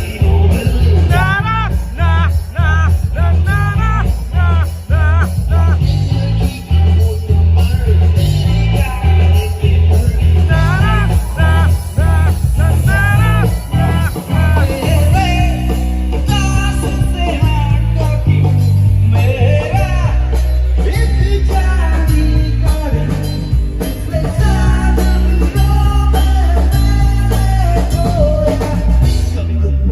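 Live rock band playing loud, with heavy bass and drums under a wavering, vibrato-laden lead melody.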